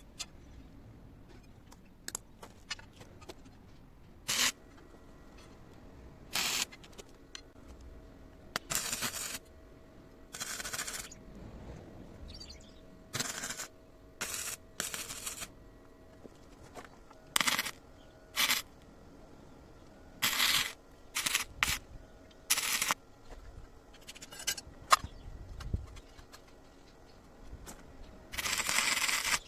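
YOTUKA YS-MIG100 semi-automatic welder striking its arc again and again for short tack and stitch welds: about fifteen separate bursts of hiss, each under a second to about a second and a half long, with short pauses between.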